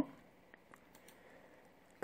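Near silence with a few faint clicks of a computer mouse.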